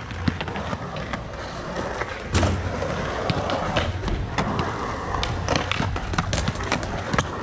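Skateboard wheels rolling on the smooth concrete of a pool bowl, with scattered sharp clacks and knocks of the board. The rolling gets louder after a hard knock about two and a half seconds in.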